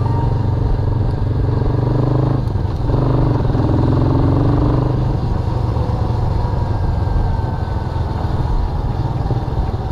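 Motorbike running along a road at steady speed, its engine and road noise heard from the rider's seat.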